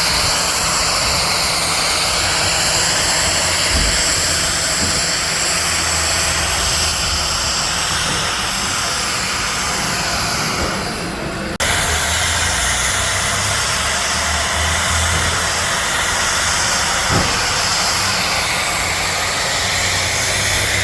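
Steam locomotive 1309 standing and running, giving off a steady loud hiss over a low rumble. A little past halfway it fades briefly, then cuts back in sharply.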